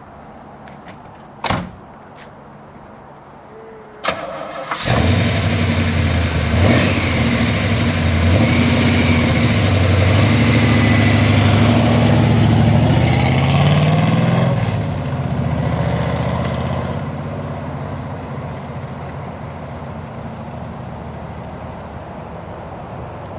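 A thump, then about five seconds in a 468 cubic-inch big-block Chevy V8 with headers and Hooker Super Comp exhaust cranks and fires up. It runs fast and loud on a cold fast idle for about ten seconds, then the idle drops and settles into a lower, steady lope.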